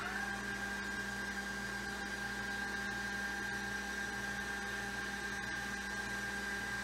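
10-inch Meade LX200GPS telescope's drive motors and gears slewing at full speed, a steady whine over a low hum. The gears are freshly greased and run a bit quieter for it.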